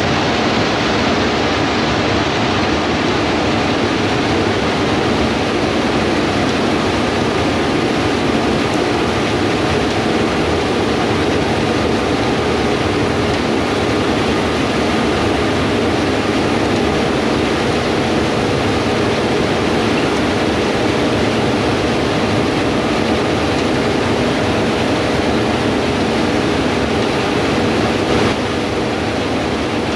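Harvest machinery running steadily: a loud, even machine drone with a few steady hums, unchanging throughout.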